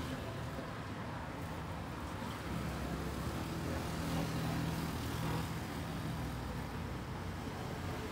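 Steady low rumble of a motor vehicle engine, growing a little louder about halfway through.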